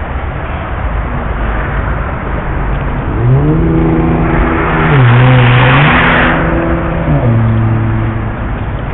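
A motor vehicle passing close by, its rushing noise swelling to a peak about midway and then fading, while its engine note steps up and down in pitch several times.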